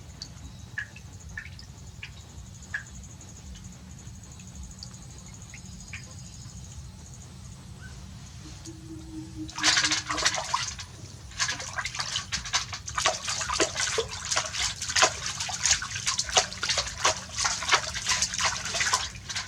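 Water splashing during a bath: a low hum and a few small clicks at first, then from about halfway in, rapid irregular splashing and sloshing.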